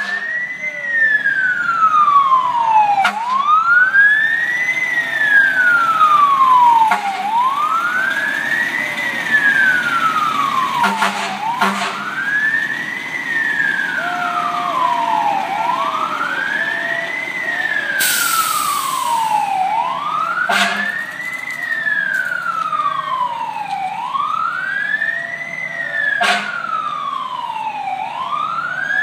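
Fire engine siren sounding a steady wail: a quick rise in pitch, then a slower fall, repeating about once every four seconds. A few sharp clicks and a short burst of hiss about two-thirds of the way through cut in over it.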